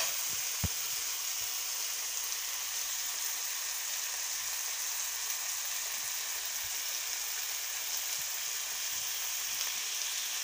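Carrots and tomatoes frying in oil in a pan: a steady sizzling hiss, with a couple of light knocks in the first second.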